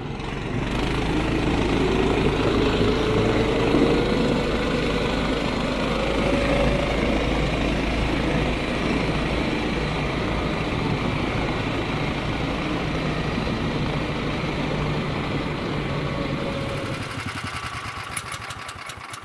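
Motorized tow sled (motosobaka) engine running under way, its pitch rising over the first several seconds, then holding steady and easing off near the end.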